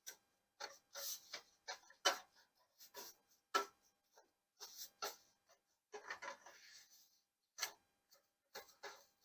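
Folded lavash bread crisping in a hot dry skillet, giving off faint, irregular ticks and crackles, with a short run of light crackling about six seconds in.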